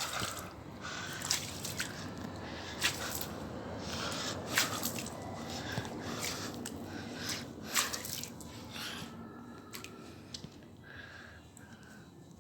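Water trickling and dripping from a small toy waterfall: a steady trickle with irregular sharp drips and splashes, growing fainter toward the end.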